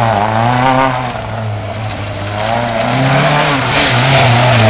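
Rally car engine revving hard as the car is thrown around cones on wet tarmac, the engine note rising and falling with the throttle. It grows louder near the end as the car swings past close by.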